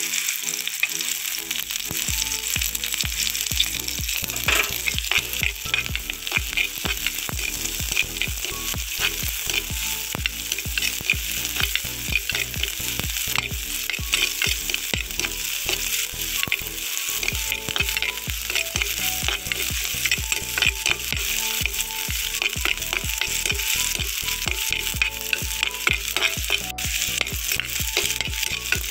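Sliced shallots, green chillies and fenugreek seeds sizzling in hot coconut oil in an earthen pot, with a metal spoon stirring them and clicking and scraping against the pot.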